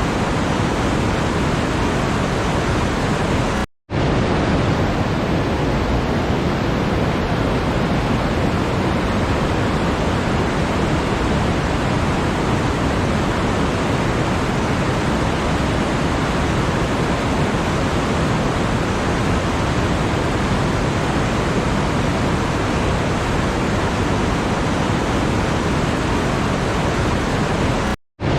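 Steady, even rushing noise like pink noise, with no distinct events, cut by two brief silent drop-outs about four seconds in and near the end.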